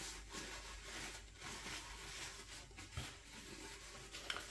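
Paper towel rubbing over a pistol's metal slide and frame as it is wiped down: faint rustling with a few small handling clicks and a soft knock about three seconds in.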